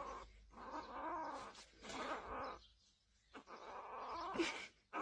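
A pet animal vocalizing in several drawn-out, pitched stretches of about a second each, with short pauses between them.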